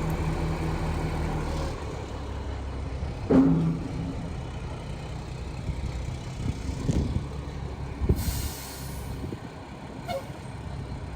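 A heavy truck's diesel engine idling steadily, which drops away about two seconds in. Then comes a loud knock, scattered clunks and clicks, and a short hiss of released air, like an air brake, a little over two-thirds of the way through.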